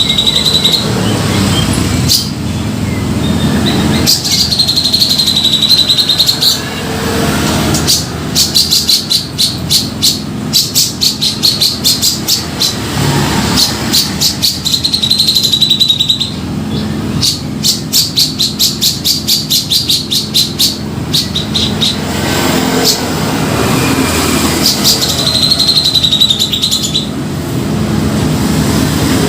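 Grey-cheeked bulbul (cucak jenggot) calling in full song: a held high note recurs about every ten seconds, between rapid chattering runs of sharp notes. A steady low hum lies underneath.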